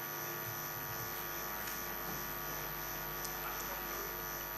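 Steady electrical hum with faint background room tone.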